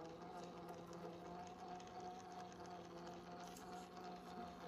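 Electric motor and gears of an RC rock crawler whining steadily at crawling speed as it climbs a rock crevice.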